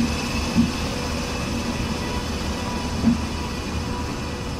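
Indian Railways WAP-7 electric locomotive passing slowly at close range: a steady hum over a low rumble, with a few dull knocks from the wheels.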